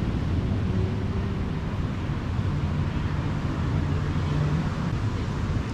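A low, steady engine drone with a hum that holds a pitch, over a background of outdoor noise.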